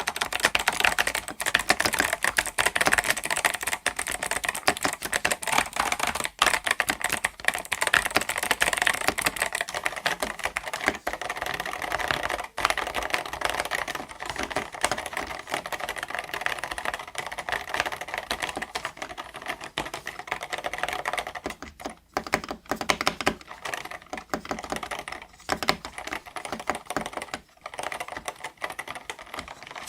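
Mechanical keyboard, the 8BitDo Retro Mechanical Keyboard M Edition, being typed on fast and without pause: a dense, continuous run of key clicks and clacks.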